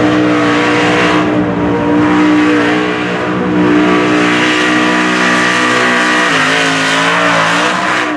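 Lifted pickup mud truck's engine running hard at high revs while its oversized tires churn through a water-filled mud pit. The engine note holds nearly steady, sags about six seconds in, then climbs back up.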